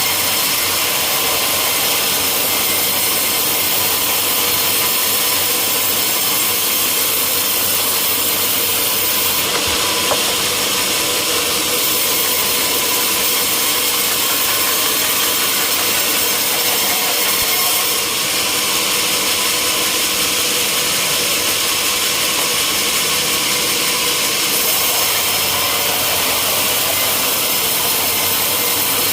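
Sawmill saw cutting through a teak log: a loud, steady, hissing saw noise that holds without a break, its highest part brightening for a few seconds about a third of the way in and again past the middle.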